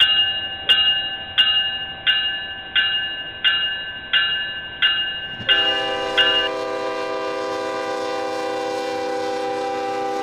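A train bell ringing steadily, about three strikes every two seconds. About five seconds in, a multi-note air horn comes in and holds one long, steady chord, with the bell stopping a second later.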